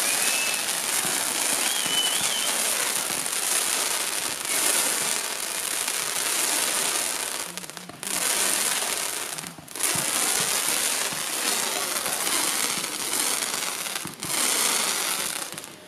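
Fireworks going off: ground fountains and rising comets give a dense, continuous hissing and crackling of sparks, with short lulls about eight, nine and a half and fourteen seconds in.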